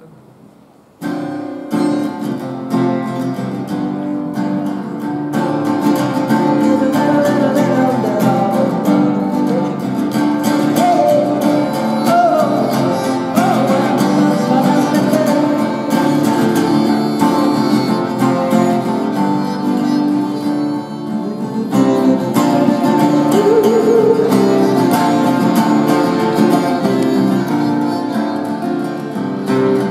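Instrumental introduction of a song: acoustic guitar playing, with a wavering melody line over it, starting about a second in after a brief pause.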